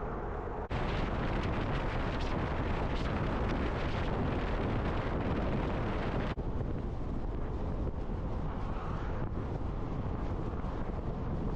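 Steady road and wind noise of a moving vehicle, changing abruptly twice: about a second in and again just past the halfway mark.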